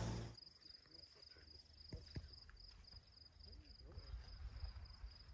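An insect calling in the night, a steady high-pitched chirp pulsing about three times a second. Faint voices murmur now and then under it.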